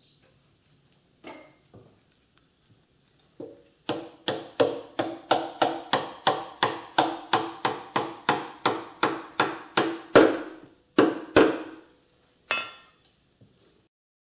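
Plastic-faced mallet tapping at the engine mounting between a Yamaha YL1's crankcase and frame: a steady run of about twenty quick taps, roughly three a second, then two harder blows and one last blow with a brief metallic ring.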